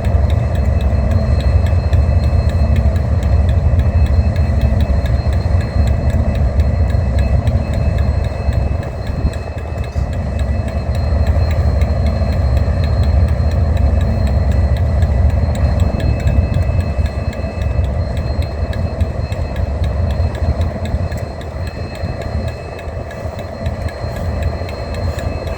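Diesel-electric locomotive engine running steadily with a deep rumble and a steady whine above it, a little quieter in the last few seconds.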